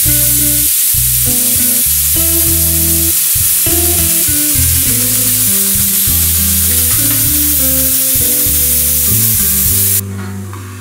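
Compressed air hissing steadily from a leaking hose connection at a small model engine's air inlet, cutting off suddenly near the end. Guitar background music plays underneath.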